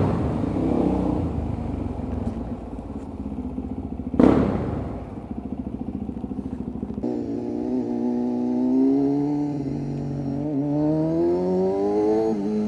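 Motorcycle engine running on the move, its pitch rising and falling with the throttle, with one sharp bang about four seconds in.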